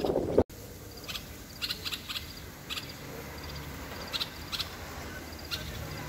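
A loud rumbling noise cuts off abruptly about half a second in. A caged common bulbul follows with short, sharp chirping notes, some single and some in quick pairs, scattered through the rest.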